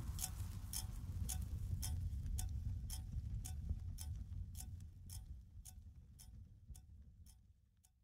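Background music track of clock-like ticking, about two ticks a second, over a low bass drone, fading out gradually toward the end.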